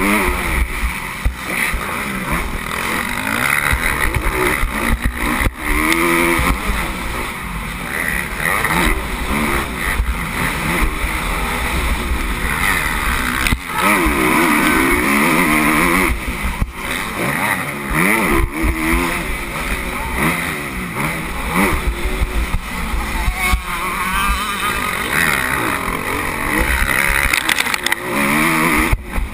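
Motocross bike engine revving hard and falling back again and again as the rider accelerates and shifts around the track, with wind buffeting the onboard camera's microphone as a low rumble.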